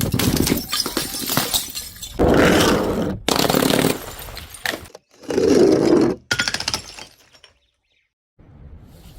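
Glass bottles smashing: three loud crashes about two to three seconds apart, each trailing off, then a brief dead silence near the end.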